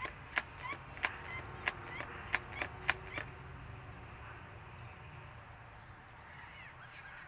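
A run of about nine sharp clicks in the first three seconds or so, with short bird chirps between them and a few more near the end.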